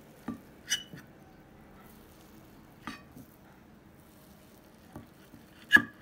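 A kitchen knife cutting slices of firm set polenta on a ceramic platter, its blade clicking and tapping against the plate about five times, with the loudest click near the end.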